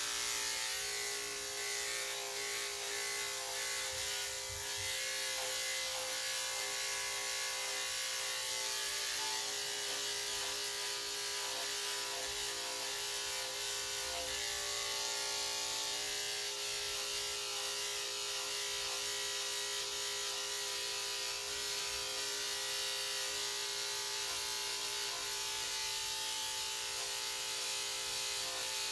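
Electric dog-grooming clippers running with a steady hum as they shave through a heavily matted coat.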